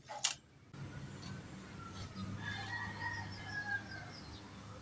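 A sharp click near the start, then a faint, drawn-out animal call over steady background noise and a low hum.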